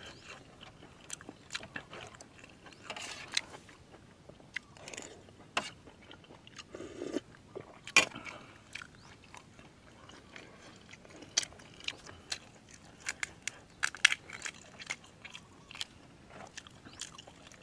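Close-up eating sounds: a person chewing and crunching food, with many sharp, short clicks and smacks scattered throughout.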